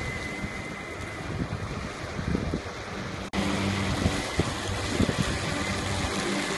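Weibang WB76E battery-electric ride-on mower cutting grass: a steady low hum of the motor and spinning blades, mixed with wind noise on the microphone. The hum is plainer in the second half.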